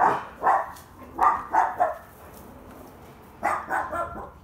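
A dog barking in short barks: five in the first two seconds, then a quick run of three near the end.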